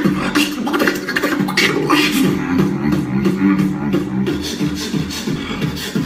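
Solo human beatboxing in a technical 'tech flow' style: a fast, dense run of mouth clicks and percussive snare-like hits laid over held, hummed low bass notes.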